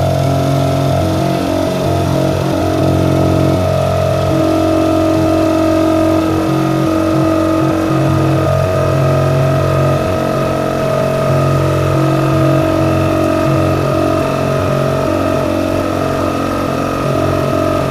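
Small electric vacuum pump running steadily with a constant hum, drawing air out of a leak-test chamber to pull a vacuum of about 600 mmHg.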